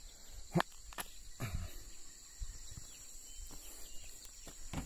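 Digging by hand in soil with a small knife: faint scraping, with a couple of sharp clicks about half a second and a second in, over a steady high-pitched whine.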